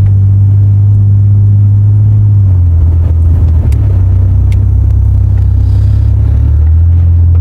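Loud, steady low rumble of gale-force wind buffeting a moving truck, with road noise, heard from inside the cab; the rumble shifts about two and a half seconds in. A few faint ticks of blowing sand strike the body.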